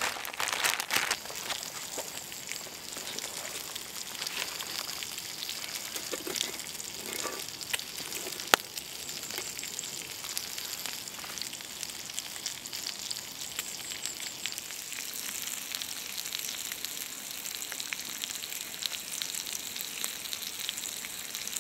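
Bacon sizzling on a hot flat stone over a campfire: a steady high hiss dotted with small crackles and pops, with one sharper pop about eight and a half seconds in. A plastic bag of batter crinkles briefly at the start.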